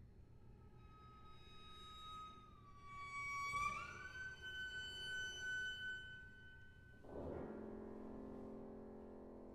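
Bowed cello playing a quiet, high held note that dips slightly, then slides upward and holds. About seven seconds in, a lower chord sounds suddenly and rings on, fading slowly.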